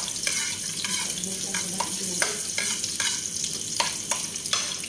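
Food sizzling in a frying pan while a utensil stirs it, with short scraping knocks against the pan about two to three times a second over the steady sizzle.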